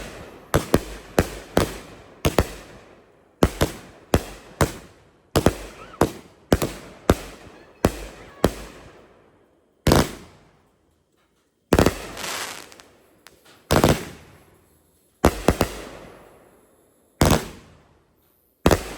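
Consumer fireworks going off in the grand finale. A rapid string of sharp bangs, several a second, runs for about the first nine seconds; after that, single bangs come every second or two, each trailing off in an echo.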